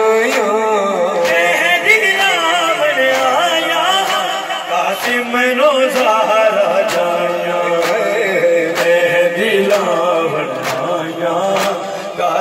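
A Punjabi noha chanted by a male voice over a loudspeaker system, with long wavering held notes. Sharp beats of matam (chest-beating) fall evenly about once a second.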